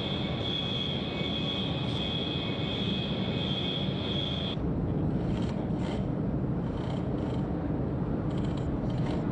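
Steady low hangar ambience with a high whine that cuts off abruptly about halfway through; after that, a few light knocks and scrapes from workers handling a section of aircraft fuselage wreckage.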